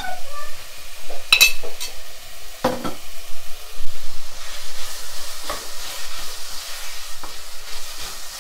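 Chopped onion and mixed vegetables sizzling in a nonstick pan, with two sharp knocks in the first three seconds, then a wooden spatula stirring and scraping them around the pan from about four seconds in.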